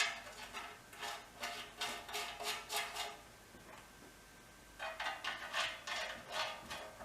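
Hand tools working metal on metal: repeated short scraping and clicking strokes in quick succession, in two runs with a pause of about two seconds near the middle, as threaded bolts are worked into the muffler mount.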